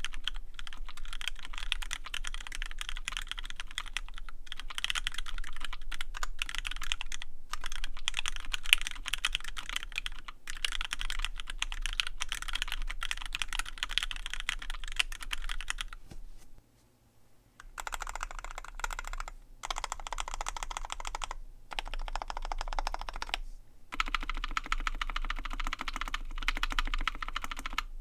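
Custom 65% mechanical keyboard, a KBDfans Tofu 65 with an aluminium plate, lubed Gateron Yellow linear switches with switch films and PBT keycaps, typed on in continuous fast runs. There are brief pauses between runs and a break of about a second a little past the middle.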